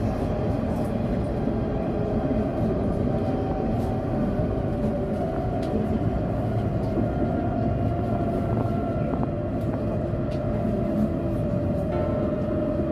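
Alstom Citadis X05 tram running along its track, heard from inside the driver's cab: a steady rolling rumble with faint steady tones over it as the tram slows slightly.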